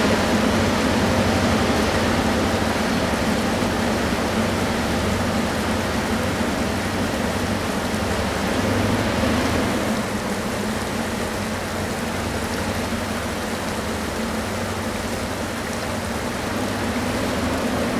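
Two EMD GP ('Geep') two-stroke diesel locomotives working under load up a steep grade: a steady low engine drone under a broad rush of noise, slowly fading.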